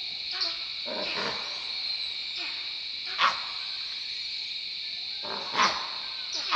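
Short, sharp animal barks, about five of them at irregular intervals, the loudest a little past three seconds in and again near five and a half seconds, over a steady high-pitched drone.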